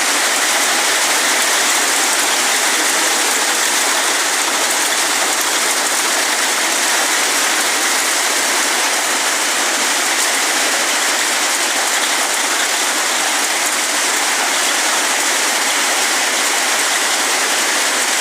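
Storm noise: heavy rain making a steady, loud rushing hiss.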